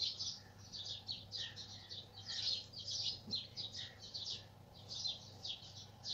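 Birds chirping in a quick, continuous string of short high chirps, with a faint low hum underneath.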